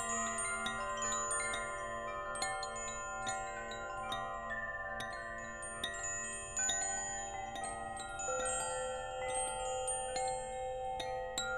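Wind chimes tinkling, struck at random several times a second, their many high ringing tones overlapping and dying away slowly.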